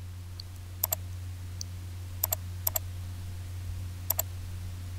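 Computer mouse button clicking four times, each a quick press-and-release double click, over a steady low hum.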